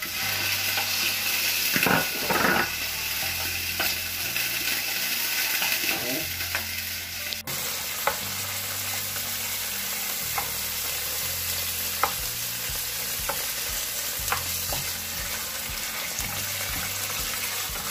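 Raw salmon cubes frying and sizzling in hot oil in a frying pan with shallot and tomato paste. The sizzle comes up as the fish goes in at the start, and a wooden spoon stirring the pieces knocks lightly against the pan a few times.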